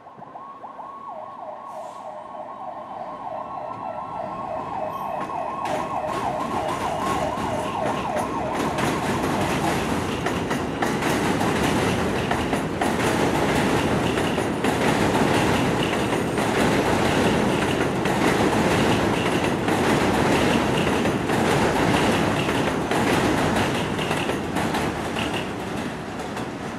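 An emergency siren wavers quickly up and down for the first several seconds. Then an R160 subway train runs past on an elevated steel viaduct: its rumble builds to a loud peak midway, with wheels clicking over the rail joints and a faint steady high whine, and eases off near the end.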